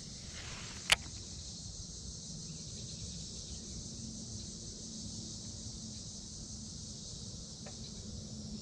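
Steady high-pitched insect chorus over a low, even hum. About a second in, one sharp click, just after a cast with a fishing rod and reel.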